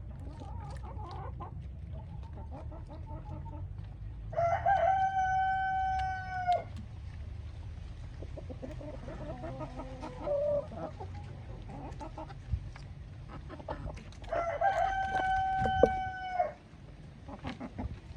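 Rooster crowing twice, each crow a long held call of about two seconds, about ten seconds apart, with hens clucking softly in between.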